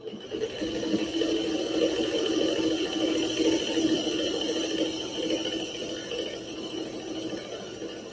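Vintage electric sewing machine stitching a seam: it starts up and runs at a steady whirring hum for about eight seconds, easing off toward the end as the row is finished.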